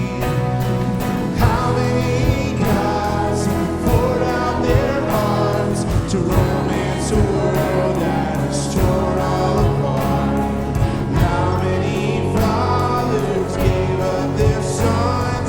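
A live church worship band playing a song: steady drum hits over sustained bass and guitar, with voices singing.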